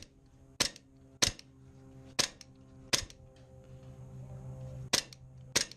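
Airsoft guns firing single shots: about six sharp cracks at uneven intervals, over a faint steady low hum.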